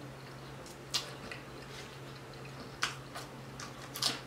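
Close-up mouth sounds of a person chewing food with her lips closed: a few sharp wet smacks and clicks, one about a second in, two near three seconds, and the loudest around four seconds as she licks her fingers. A faint steady hum lies underneath.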